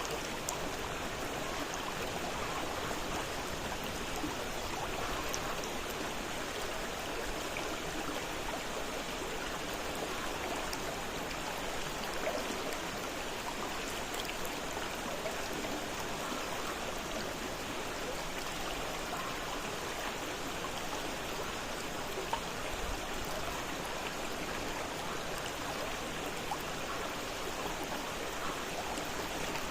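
Fast-flowing river water rushing and splashing over rocks, a steady, unbroken sound with small droplet splashes scattered through it.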